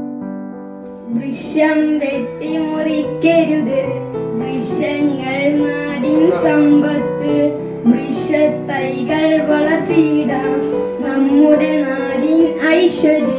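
A boy singing a song into a microphone over an electric keyboard accompaniment. The keyboard plays alone for about the first second before the voice comes in.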